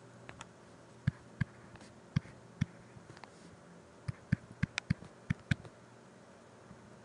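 Stylus tapping and clicking on a tablet while handwriting: a dozen or so sharp, irregular clicks, bunched together between about four and five and a half seconds in.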